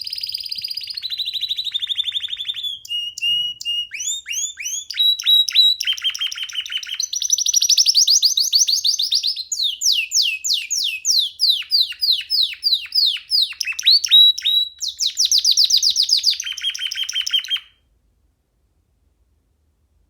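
Young domestic canary singing a long, loud song: a chain of rapid trills, each a run of quickly repeated notes, many sweeping downward in pitch, switching to a new trill every second or two. It stops abruptly shortly before the end.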